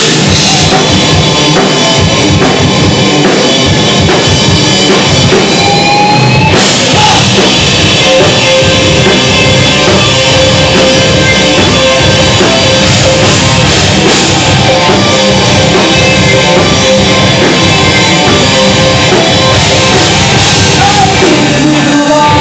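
A live rock band playing loudly: drum kit with cymbals, guitar and keyboard.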